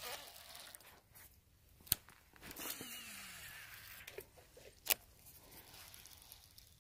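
Handling a baitcasting rod and reel: two sharp clicks about three seconds apart, with a short rushing swish between them.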